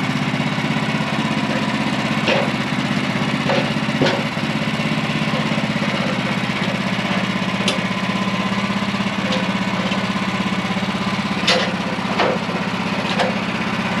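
Portable band sawmill's engine idling steadily, not under load. A handful of sharp knocks and clunks come through it as the log is turned over and clamped on the mill bed.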